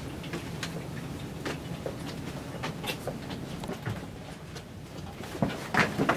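Office room tone: a steady low hum with scattered light clicks and taps, then a few louder knocks near the end.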